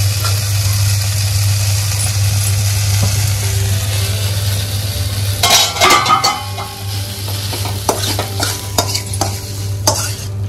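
Ghee tempering of tomato, ginger, cumin and dried chillies sizzling in a steel kadai while a steel spatula stirs and scrapes it. A cluster of loud metal clanks comes about halfway, then scattered scrapes and clinks of spatula on pan, with a steady low hum underneath.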